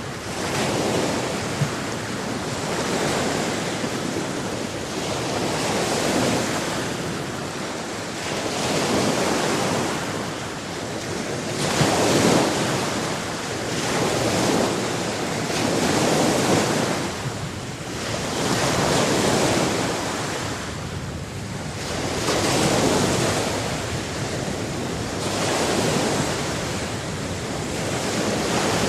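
Sea waves breaking and washing on a shore, swelling and receding every few seconds, with wind noise over the surf.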